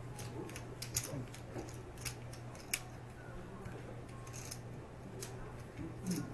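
A handful of sharp, scattered clicks and snaps of poker chips and playing cards being handled on a poker table's felt, over a steady low hum.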